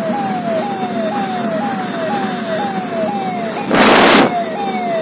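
Road noise inside a moving car, with an electronic tone that falls in pitch and repeats about twice a second, like a siren. About four seconds in, a loud rush of noise lasts about half a second.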